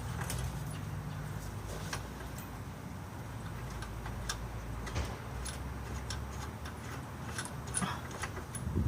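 Scattered light metallic clicks and ticks of hand tools working on a shock absorber's mounting bolt, coming irregularly rather than in a steady run.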